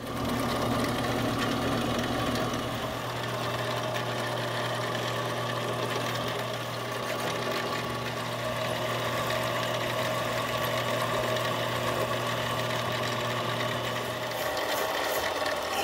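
Central Machinery 7x12 benchtop mini lathe running steadily: a motor and gear-train hum that starts abruptly, while the tool on the compound rest turns a taper on a steel rod. A lower hum drops out near the end.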